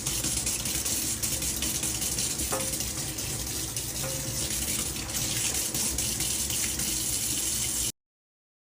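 Steady rush of running water, like a tap running, with a couple of faint ticks; it cuts off suddenly near the end.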